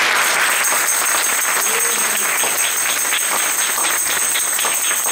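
An audience applauding, with many hands clapping, which dies away near the end. A thin, steady, high-pitched tone sounds over the clapping.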